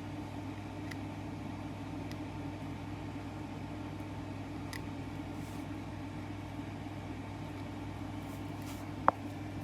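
Steady low mechanical hum with a few faint light ticks, and one sharp click about nine seconds in.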